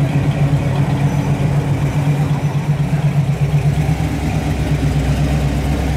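First-generation Chevrolet Camaro's engine running at a slow roll with a steady, pulsing low exhaust note, growing deeper and louder near the end as the car passes close by.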